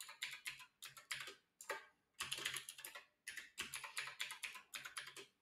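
Typing on a computer keyboard: runs of quick keystrokes broken by short pauses, as a password is entered and then re-entered.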